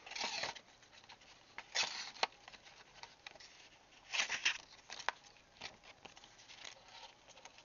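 Small pocket-knife blade cutting an index card in three short scratchy strokes, with a few sharp clicks between them. The blade is dull and cuts the card poorly; he says it should be sharpened.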